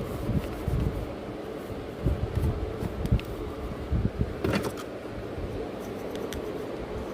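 A steady mechanical hum with a faint steady tone. Over it come irregular low thumps, and a short cluster of clicks about four and a half seconds in.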